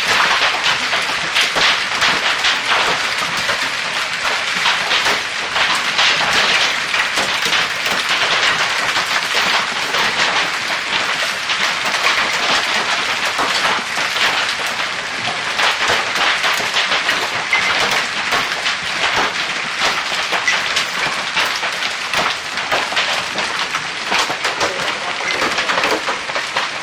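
Hailstorm: hailstones and rain pelting down, a loud, steady, dense clatter of countless small impacts.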